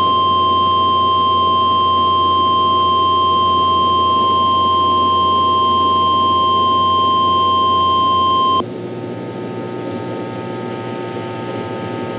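NOAA Weather Radio warning alarm tone: a single steady high-pitched tone that cuts off sharply about eight and a half seconds in, leaving low radio hiss and hum. The tone is the attention signal that comes before a warning message, here a test tornado warning.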